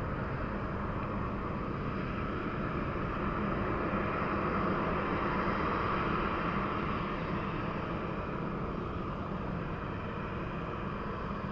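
Boeing 737-800 jet engines heard at a distance as a steady rumbling hum, swelling gently to a peak about halfway through and easing off again.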